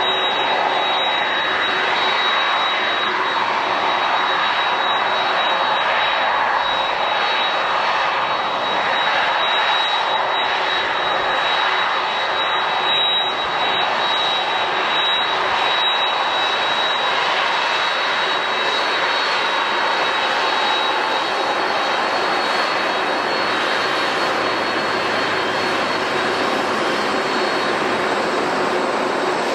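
Jet airliner engines running, a loud, steady rush of noise with a thin high whine that fades out a little past halfway.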